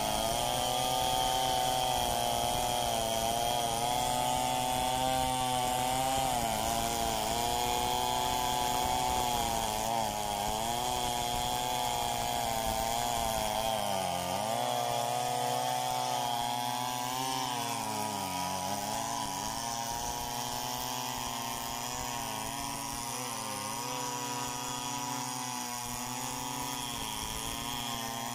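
Large two-stroke chainsaw ripping lengthwise through a mahogany log, freehand-milling it into planks. The engine runs at high revs under load, its pitch sagging briefly every few seconds as the bar bites into the cut, then recovering.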